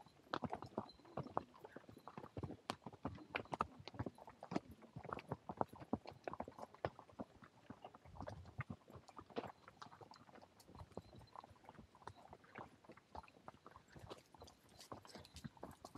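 Horses' hooves clip-clopping on the trail, a steady uneven patter of footfalls from the ride.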